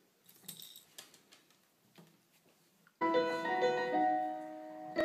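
A small dog shuffling in a wicker basket, heard as faint, scattered light clicks and rustles. About three seconds in, piano music starts abruptly and plays a few held notes, much louder than the rustling.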